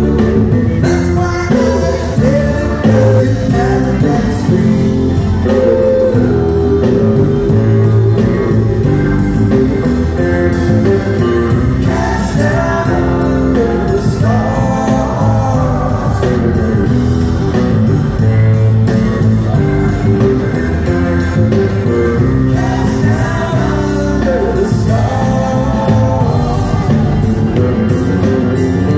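Live band playing a mid-tempo rock song: Hammond organ, electric guitar, bass and drums, with lead and backing vocals singing over it.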